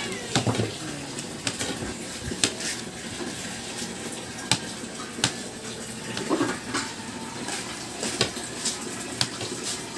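Kitchen knife slicing sausages on a plate: the blade knocks against the plate with each cut, in sharp irregular taps about once or twice a second.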